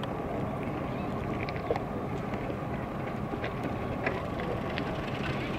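Steady outdoor rumble of wind on the microphone, with scattered faint clicks.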